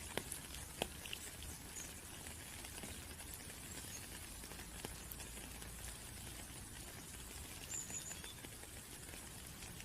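Rain falling in a steady hiss, with a few separate drops tapping more loudly, most of them in the first second or so.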